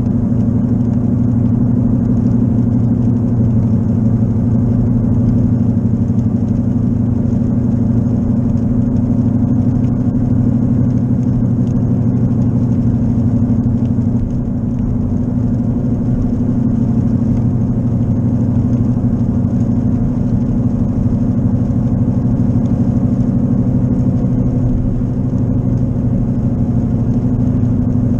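2011 Chevrolet Malibu at road speed, with a steady low drone from a failing left wheel bearing under the tyre and road noise. The drone is the sign of a worn bearing.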